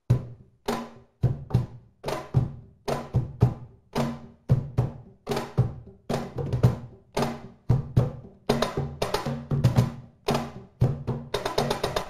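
Two Peruvian cajones, one of them a snare cajón, played together in an Afro-Peruvian landó rhythm: deep bass strokes mixed with crisp slaps, two to three a second, breaking into a quick flurry of strokes near the end.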